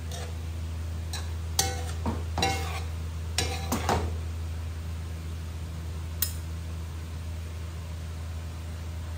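Metal tongs tossing noodles in an aluminium pot, clinking and scraping against the pot several times in the first four seconds, with one more clink about six seconds in, over a steady low hum.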